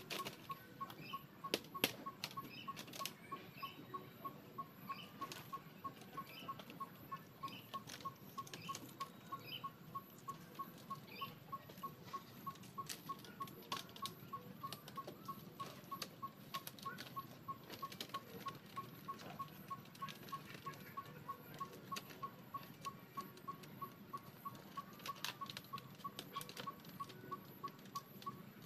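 Faint, steady ticking at about three ticks a second, with scattered sharper clicks and faint chirps over it; the ticking stops near the end.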